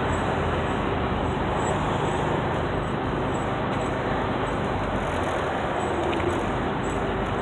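Steady road and engine noise heard from inside a vehicle's cabin while it cruises at highway speed.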